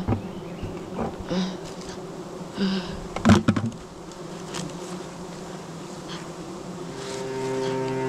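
A swarm of giant honeybees buzzing in a steady hum, with a few short knocks, the loudest about three seconds in. Music fades in near the end.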